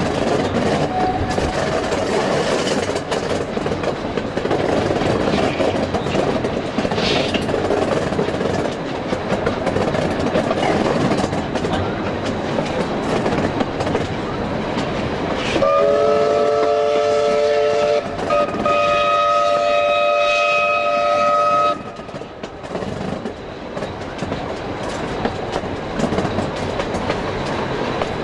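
A narrow-gauge steam train running along, heard from an open carriage window, with steady wheel and carriage noise. A little past halfway a W-class steam locomotive's chime whistle sounds one long multi-note blast of about six seconds, its chord shifting briefly partway through.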